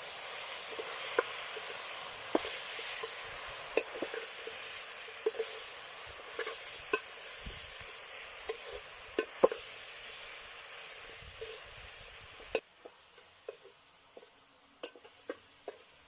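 Vegetables frying in a pot with a steady sizzle while being stirred, with sharp clicks and knocks of the utensil against the pot. The sizzle cuts off suddenly about three-quarters of the way through, leaving only scattered clicks.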